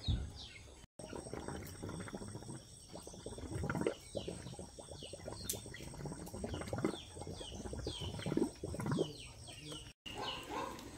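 Chicks peeping in many short, high, falling chirps, over louder scuffing and rustling sounds. The sound cuts out briefly about a second in and again near the end.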